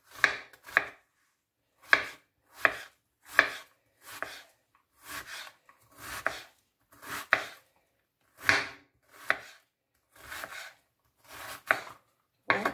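Kitchen knife dicing an onion on a wooden cutting board: one crisp crunching cut and tap on the board about every second, slightly uneven, with a short pause after the first two cuts.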